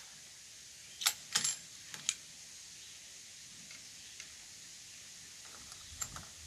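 Sharp metallic clicks of a bolt-action rifle's bolt being worked, a Winchester Model 70 in 7mm Remington Magnum: four clicks within about a second, then a couple of faint clicks near the end.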